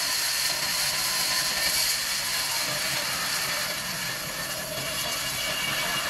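Large vertical sawmill band saw running and cutting through a palm log: a steady, even high-pitched rush of blade and sawdust with no breaks.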